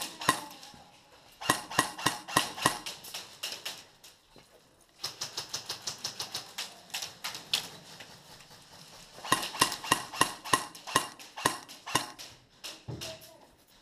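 Airsoft guns firing in three runs of rapid, sharp clicks, about six a second in the longest run, which lasts around three seconds.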